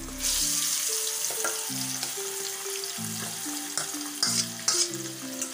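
Marinated chicken pieces going into hot oil in a kadhai, sizzling loudly from just after the start, with a few sharper spatters later on. Background music with short melodic notes plays underneath.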